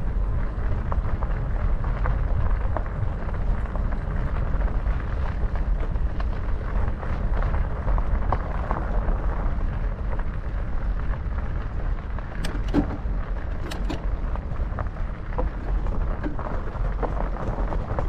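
A Trek Farley 5's 5-inch fat tires rolling over a gravel trail at a slow riding pace: a steady low rumble with many small crunches and clicks from the gravel, and a few sharper clicks about twelve and a half and fourteen seconds in.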